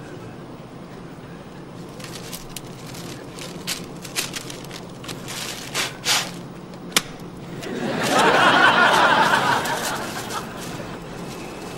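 A paper sick bag puffed into a couple of times and then popped with one sharp bang, followed by a studio audience laughing for a couple of seconds.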